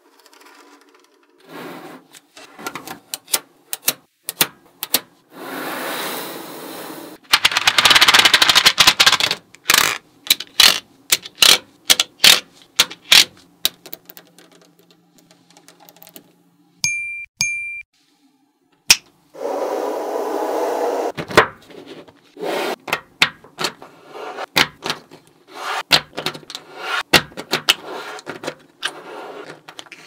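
Small magnetic metal balls clicking and snapping against one another as they are pressed into a flat grid by hand, with a few stretches of steady rattling lasting a second or two as strands of balls are laid down.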